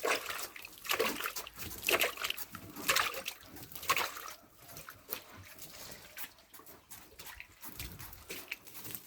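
Water mixed with IMO being flung by hand onto a pig-pen floor: irregular splashes and sloshes about once a second, fading to fainter spatters after about four seconds.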